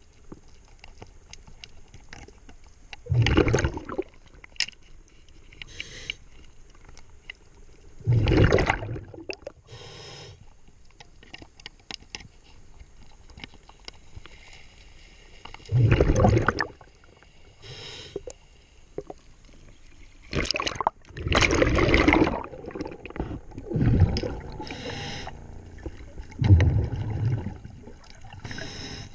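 Scuba diver's regulator heard underwater: exhaled bubbles gurgling out in bursts of about a second, every few seconds, with fainter breaths and small clicks and knocks between them.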